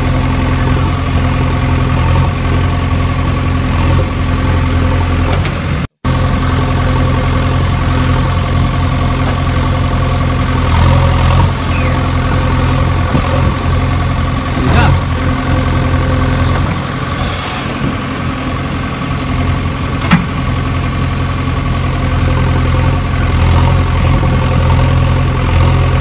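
Steady engine idling sound, low and even, cutting out for an instant about six seconds in, with a few short clicks over it.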